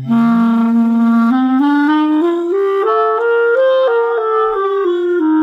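Clarinet playing part of a C major scale, stepping up note by note and then back down, with the first note held for about a second. The player sings a low note into the instrument at the same time, an exercise that keeps the voice and throat out of the clarinet playing.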